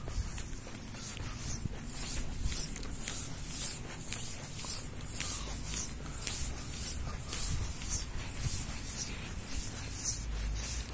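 Footsteps of someone walking on a pavement: a brushing scuff about twice a second, at an even walking pace. A low rumble runs underneath and grows near the end.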